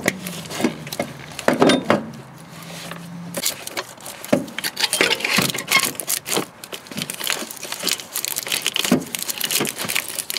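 Irregular metallic clatter, knocks and scraping as the alternator is worked loose and pulled out of a tight engine bay. A low drone runs under the first few seconds.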